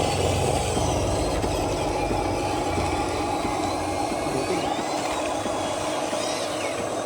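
RC construction vehicle's motor and gearing running steadily. A low hum underneath fades away over the first couple of seconds.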